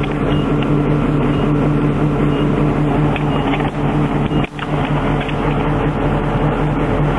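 Military convoy vehicle's engine running steadily, a constant low drone heard from the vehicle's turret. The sound briefly drops out about four and a half seconds in.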